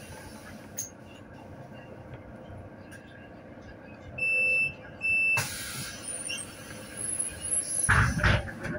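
Solaris Urbino 12 city bus at a stop, its diesel running in the background. The door warning beeps twice, about four and five seconds in, as a signal that the doors are about to close. A burst of air hiss follows the second beep, and a heavier low rumble comes near the end.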